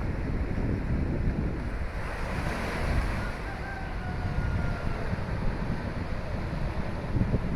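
Strong wind buffeting the microphone over the steady wash of sea waves.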